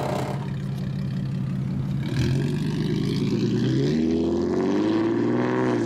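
Car engine and exhaust of a lowered coupe pulling away, running steadily at first, then getting louder about two seconds in, with the engine pitch rising as it accelerates near the end.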